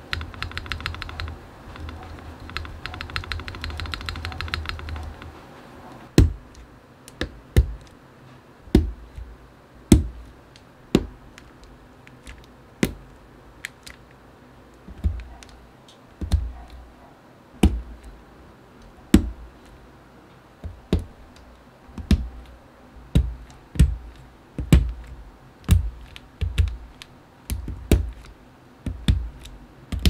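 Rapid tapping on keyboard keys for the first few seconds. Then Holy Panda mechanical switches are pressed one at a time into the keyboard plate, each snapping in with a sharp click and a low thump, roughly one a second.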